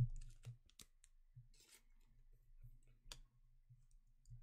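Trading cards and a clear plastic card sleeve handled by hand: faint rustling with a few sharp clicks, one at the start and another about three seconds in.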